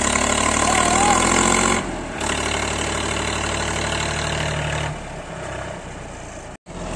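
Tractor engine running hard under the pull of a loaded log trailer, heavy enough to lift the front wheels off the ground. The engine note eases back about two seconds in and again near five seconds, and the sound cuts out for a moment just before the end.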